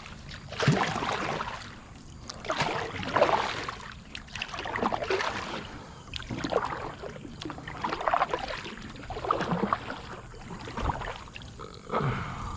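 Kayak paddle strokes in the water, a steady run of swishing splashes at about one stroke every second and a half.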